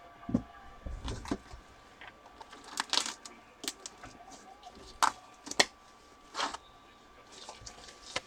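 Irregular clicks, taps and short rustles of trading-card boxes, packs and cards being handled.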